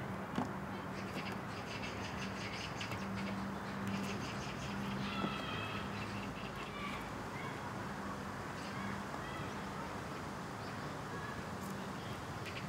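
Birds calling over a steady outdoor background of hiss and a low hum, with short bursts of quick chattering calls and one brief higher call about five seconds in.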